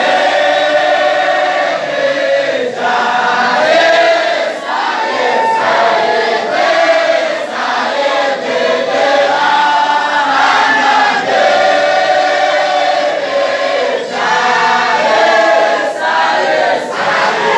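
A large group of men and boys chanting a wadifa, a Sufi dhikr recitation, together in unison. The voices sing in continuous repeated phrases with brief breaks between them.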